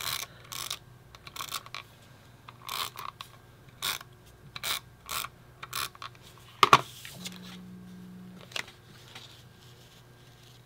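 Tape runner laying adhesive onto paper strips: about nine short strokes in the first six seconds, then a single sharp knock.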